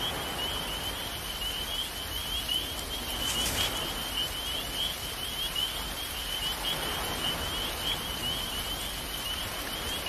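Night-time outdoor ambience: a continuous chorus of rapid high chirps from small calling creatures over a steady soft hiss, with one brief louder hiss about three and a half seconds in.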